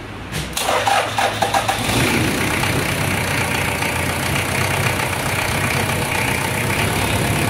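Toyota 1KZ-TE four-cylinder turbo-diesel engine cranking for about a second and a half, then catching and idling steadily after a fuel filter change and priming of the fuel system.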